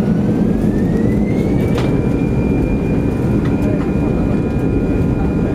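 Airbus A320 jet engines spooling up to takeoff thrust, heard inside the cabin: a loud steady rumble with an engine whine that rises in pitch over the first two seconds and then holds steady, the sign of the takeoff roll beginning. A light click about two seconds in.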